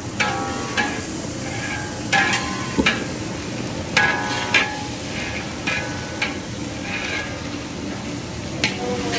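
Long-handled metal paddle scraping and clanking against a large steel wok as shredded cabbage and carrots are stir-fried, with irregular ringing metal strikes about once a second. A steady frying hiss runs underneath.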